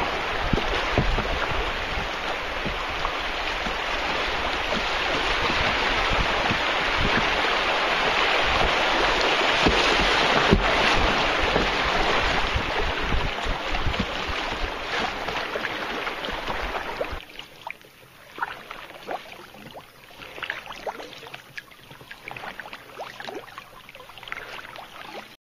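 River water rushing through a swift around a canoe, with wind buffeting the microphone. About 17 seconds in it cuts to a much quieter stretch with scattered faint short sounds.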